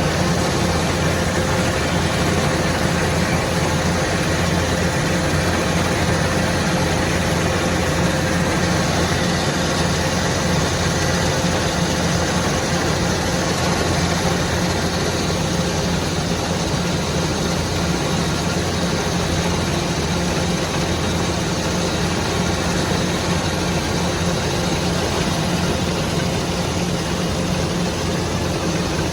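Combine harvester running steadily while harvesting rice, a continuous engine and machinery drone with a faint steady whine and no changes in speed.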